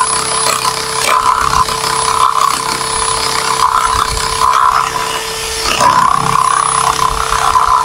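Electric drill running steadily with a constant whine, its bit boring and grinding into the wooden edge of a door through a mortising jig to cut the lock-body pocket.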